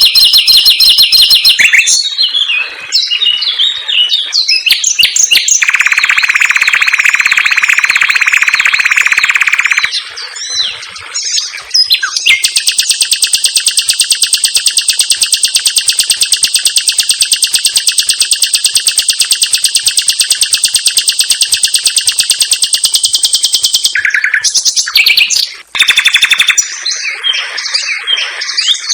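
Common nightingale singing loudly: varied phrases broken by long runs of rapid, tightly packed repeated notes. There is a lower run of about four seconds, then a high one lasting about eleven seconds. This is the 'tembakan rapat' (tight rapid-fire) delivery.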